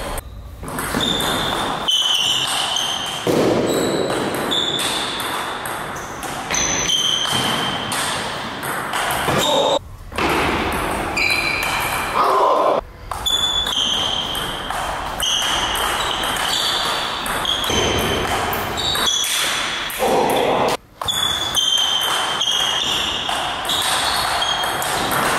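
Table tennis ball being hit back and forth, each stroke off a racket and bounce on the table a sharp click with a short high ping, in uneven runs of rallying with pauses between points. The clicks carry a hall echo.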